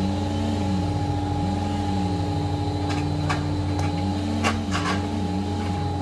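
Takeuchi TL8 compact track loader's diesel engine running, its pitch rising and falling as the grapple's hydraulics work under the load of a log, with a few sharp knocks about halfway through.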